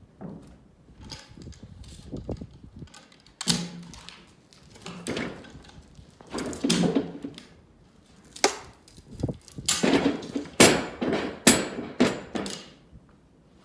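Timber being handled: a series of irregular wooden knocks and thuds, with a few scraping stretches, coming faster and louder in the second half.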